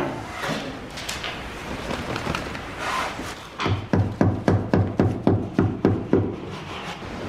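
A rapid run of about a dozen hammer blows on the wooden rudder, roughly four a second, each with a dull thud. It starts about three and a half seconds in, after softer scraping and knocking.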